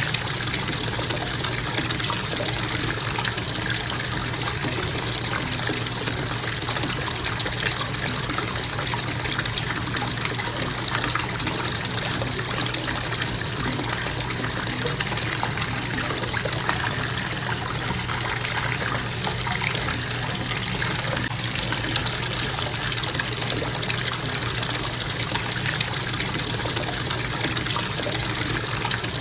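Bathtub faucet running with a constant flow of water into the tub, a steady even rush with no change.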